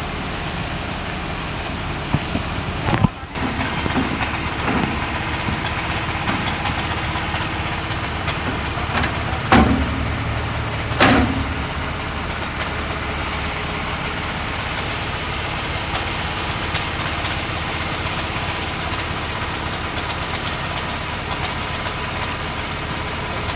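Engine running steadily, with two sharp knocks about ten and eleven seconds in.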